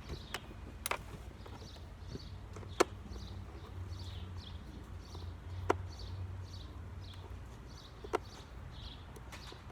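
Sharp, isolated clicks of small hardware being handled, about four of them a couple of seconds apart, while screws and legs are taken out of a scrapped piece of furniture.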